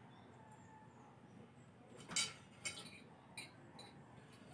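Tableware clinking and clattering during a meal: a few short sharp knocks of dishes, glass and utensils starting about halfway through, the first the loudest, after a quiet stretch of room tone.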